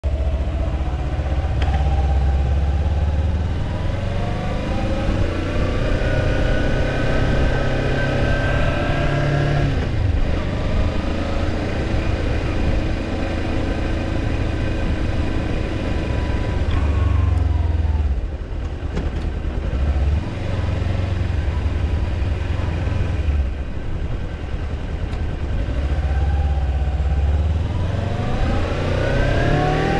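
Kawasaki Ninja 250's parallel-twin engine under way, its pitch climbing under acceleration and falling back at each gear change, easing off about eighteen seconds in and revving up again near the end.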